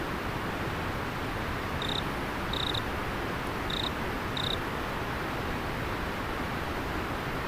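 River water flowing steadily, with an insect giving four short, high chirps in two pairs, about two to four and a half seconds in.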